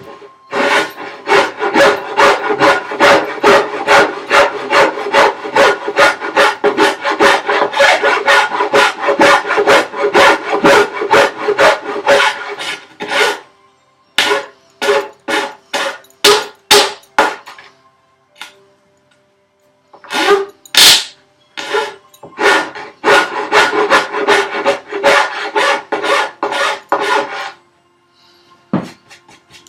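A hand file working wood in quick push strokes, about three a second. A long steady run of strokes is followed by a few scattered strokes and then a second shorter run, as a recess for a vise is trimmed to its line.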